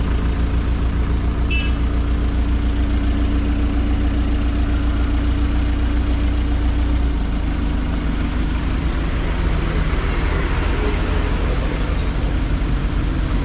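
Engine of a municipal truck running steadily, heard from its open passenger bed, with a low hum. About halfway through the low rumble eases and a hiss grows.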